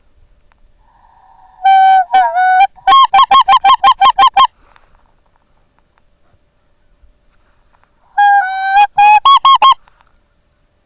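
Goose honking, loud and close: a drawn-out honk breaking into a fast run of about ten short clipped honks, then near the end another drawn-out honk and a shorter run.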